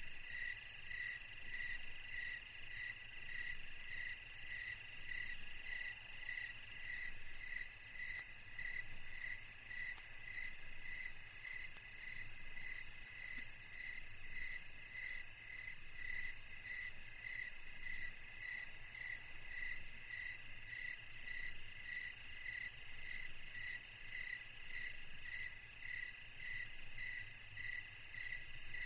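Night chorus of crickets: one chirps in an even rhythm of about two chirps a second over a steady, higher trilling from others.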